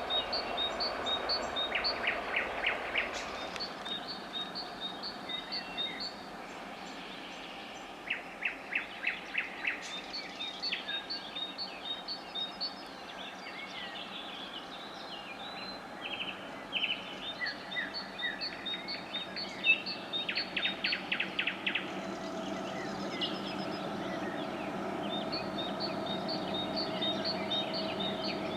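Several songbirds singing: runs of high, repeated chirps and short, fast trills, the trills coming about 2, 8 and 20 seconds in. Under them a low rumble fades away in the first few seconds, and a steady hum grows a little louder near the end.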